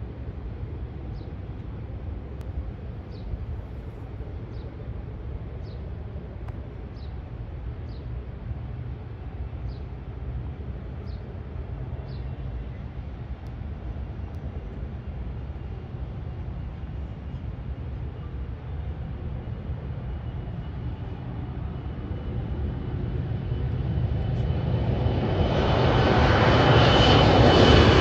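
Embraer 190 jet's twin turbofan engines at takeoff power. A low, distant rumble swells over the last several seconds into a loud roar with a high whine as the jet climbs out overhead. Faint high chirps repeat about once a second during the first half.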